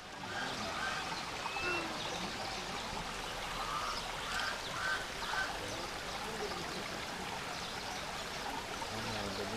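Ducks quacking in short runs of three or four calls, one run just after the start and another about four and a half seconds in, over a steady rush of running water from a small rocky stream.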